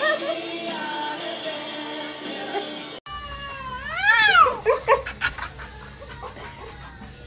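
A domestic cat gives one loud, drawn-out yowl that rises and then falls in pitch, about four seconds in.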